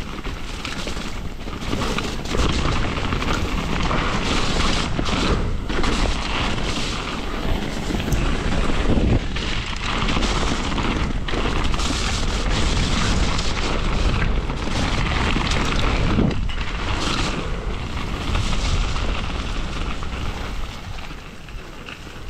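Mountain bike descending a rocky dirt trail at speed: wind buffeting the camera microphone over tyres crunching on dirt and stones and the bike rattling. It eases off near the end as the rider slows.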